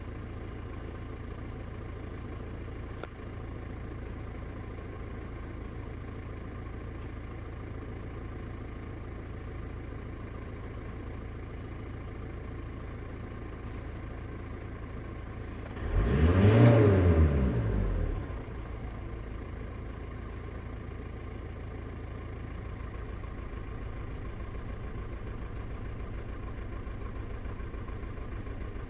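Volkswagen Passat engine idling steadily, revved once about sixteen seconds in, rising and falling over roughly two seconds, then settling back to idle. The engine has a logged cylinder 1 misfire (fault 000769 / P0301).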